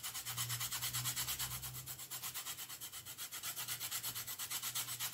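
Lemon peel being zested on a fine rasp grater: quick, even scraping strokes, about eight a second.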